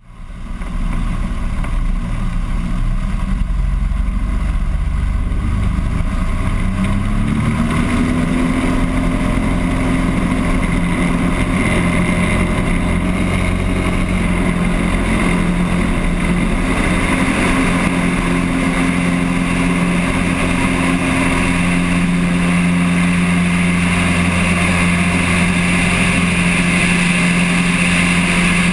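Single-engine Cessna's piston engine and propeller running, with wind rush on the wing-mounted camera. About seven seconds in the engine note rises as power comes up for the takeoff roll, then holds steady at full power through liftoff.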